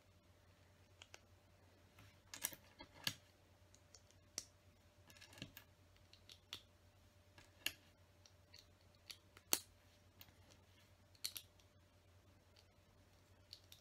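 Faint, irregular clicks of plastic LEGO bricks being handled and pressed together, about a dozen sharp clicks scattered through, the loudest about two-thirds of the way in, over a faint steady hum.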